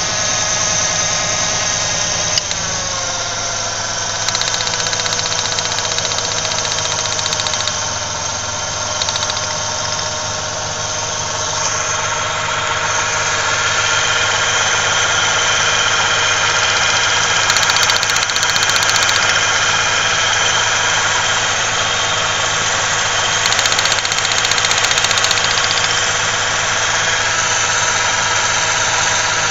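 Ford Ranger 3.0L V6 idling steadily, with a click about two seconds in after which the engine's pitch drops slightly. The engine shakes at idle, and the owner is checking the spark plug wires for a misfire.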